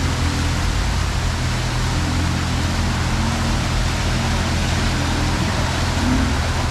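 A Jeep's engine running low and steady at crawling pace, under a constant rushing hiss.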